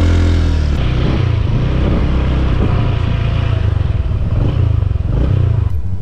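Honda Beat FI 110cc scooter's single-cylinder engine running steadily under way, with road and wind noise.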